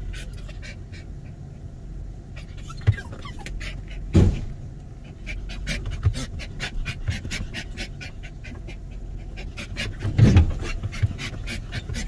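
Dog panting hard and fast, about three breaths a second, with three dull thumps mixed in.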